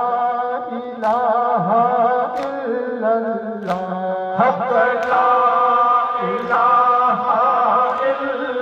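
Men's voices chanting an Urdu noha (Muharram lament) in unison through microphones, a long held, wavering melody. Sharp chest-beating slaps (matam) fall in time with it, about one every second and a half.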